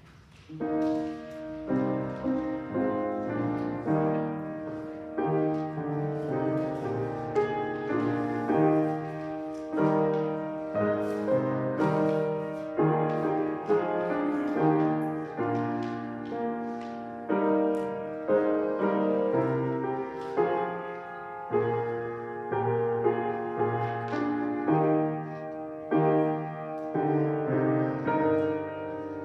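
Piano playing a hymn tune in slow, full chords, each chord struck and left to ring; it starts about half a second in.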